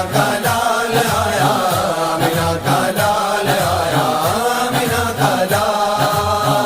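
An Urdu naat, a devotional song in praise of the Prophet, sung by a solo voice over a steady low rhythmic beat.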